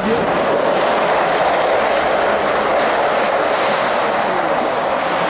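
Electric ice-racing car sliding sideways through a corner at speed, its tyres spraying snow and ice in a loud, steady rushing hiss.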